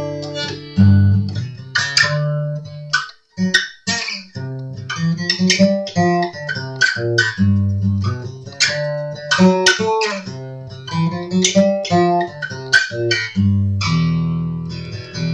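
Cheap acoustic guitar with a freshly repaired headstock, played with its G string missing: a mix of strummed chords and single picked notes, with a last chord left ringing near the end.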